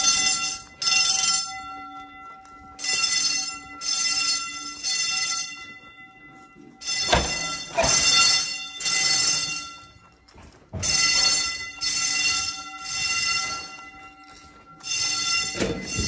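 Fire alarm horns sounding the temporal-three evacuation pattern: groups of short blasts, each group followed by a pause, repeating.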